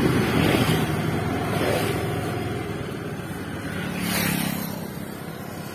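Motorbike engine running and wind rushing over the microphone while riding, the rumble fading away. A brief whoosh about four seconds in.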